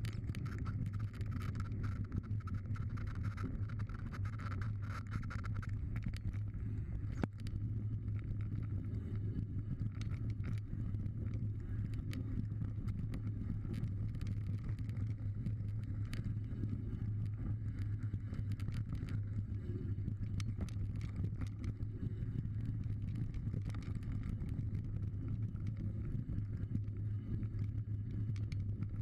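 Mountain bike riding fast down a dirt trail, heard from a camera mounted on the bike: a steady rush of wind on the microphone and tyre noise on the dirt, with frequent small clicks and rattles from the bike running over stones and roots.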